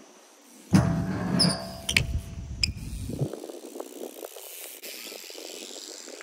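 BMX bike ridden at a skate park: a sudden loud rumble of tyres on the ground starts about a second in, with a few sharp clicks and knocks, and settles after about three seconds into quieter rolling noise.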